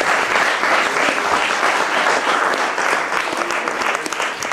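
Audience applauding after a song: dense, steady clapping that begins to thin out into separate claps near the end.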